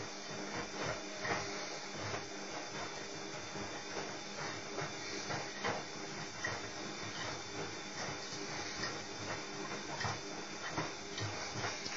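Washing machine running: a steady hiss of water and a low hum, with irregular soft knocks from the turning drum.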